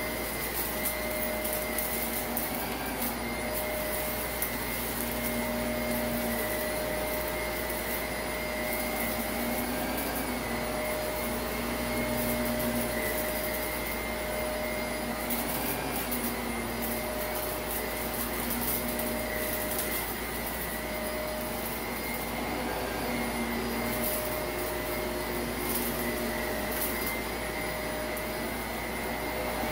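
Shark Navigator upright vacuum running with a steady whine, pushed back and forth over a shaggy rug, with scattered crackles of grit being sucked up.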